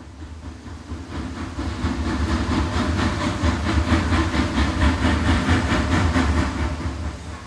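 Steam locomotive arriving, a heavy rumble with a quick even beat of about four strokes a second, growing louder over the first couple of seconds and then holding steady.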